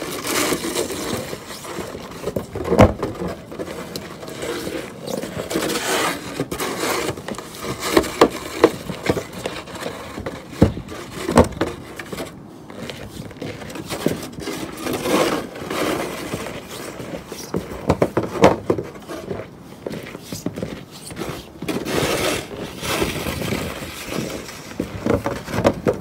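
A plastic snow shovel scraping and pushing through snow, with sharp knocks every few seconds as the blade strikes the surface.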